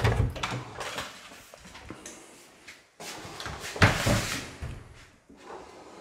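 Interior door being handled and opened: a knock from the handle and latch at the start, then a louder clatter about four seconds in.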